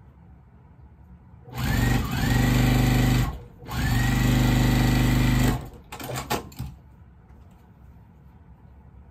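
Juki sewing machine stitching a seam in two runs of about two seconds each, its motor whine rising as each run starts. A few short clicks follow as it stops.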